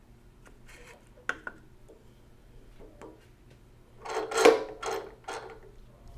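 A light knock as wooden blocks are set down on a drill press's cast-iron table about a second in, then a second and a half of louder clattering, rustling handling noise a little after four seconds.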